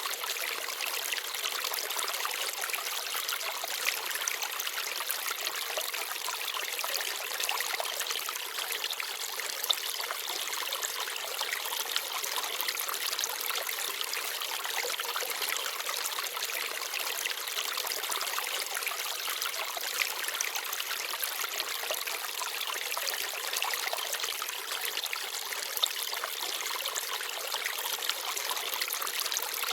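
Small forest stream babbling and trickling steadily, with a few brief louder splashes.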